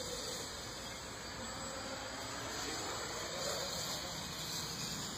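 X525 quadcopter's electric motors and propellers buzzing in flight, distant and steady, the pitch drifting up and down a little.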